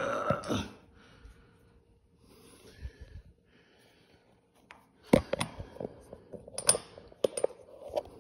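Sharp clicks and light knocks of hard plastic and metal parts being handled on a lawnmower handlebar: one click at the start, then a cluster of clicks and knocks from about five seconds in.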